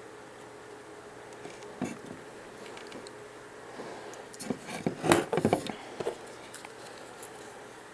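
Handling noises: scattered clicks, then a burst of irregular clattering and scraping about four to six seconds in, over a faint steady hum that fades out within the first two seconds.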